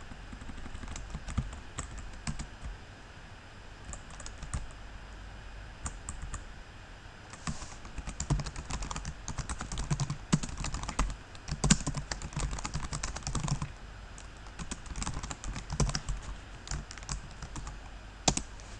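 Typing on a computer keyboard: scattered keystrokes at first, then quick runs of keystrokes with short pauses between them.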